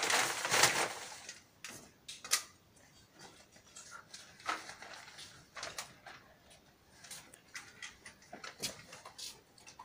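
A burst of rustling handling noise in the first second, then scattered faint clicks and knocks from small hard objects being handled, one sharper knock a little over two seconds in.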